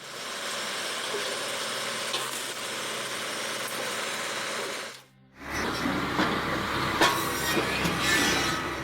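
Firewood processing machinery running: a steady, even hiss for about five seconds that cuts off abruptly, then a different machine with a low rumble and a few knocks.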